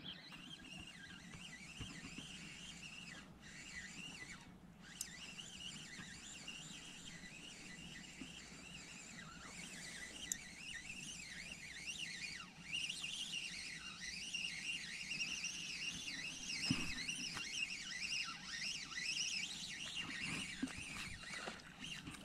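Spinning reel cranked steadily to retrieve a lure on an ultralight rod, under continuous high warbling chirps that grow busier about halfway through.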